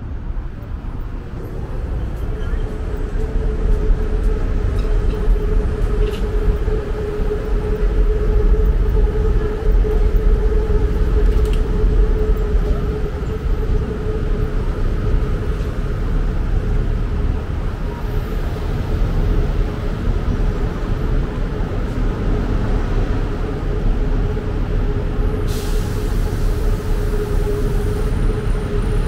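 Heavy city road traffic with buses: a steady loud rumble of engines and tyres under a steady whine held throughout, with a brief hiss near the end.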